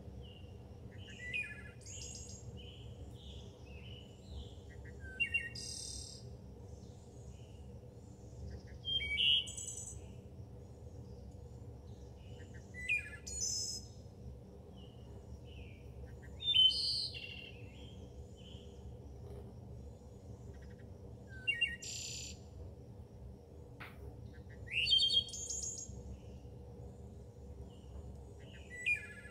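Songbirds chirping and trilling in short, separate calls every few seconds, over a faint steady low hum.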